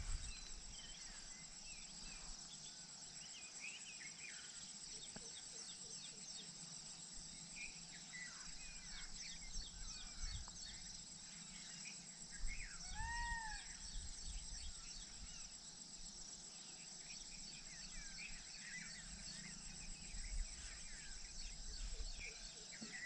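Faint countryside ambience: insects trilling steadily at a high pitch, with scattered short bird chirps and one clear arched bird call about thirteen seconds in. A few low rumbles come and go near the middle and near the end.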